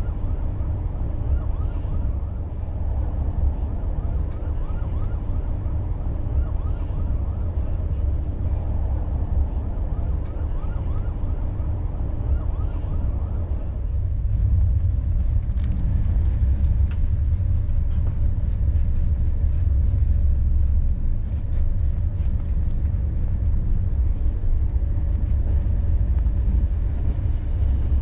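Steady low rumble of a CP Intercidades Corail passenger coach running along the track, heard from inside the carriage, with a faint steady whine over it. The rumble grows somewhat louder about halfway through.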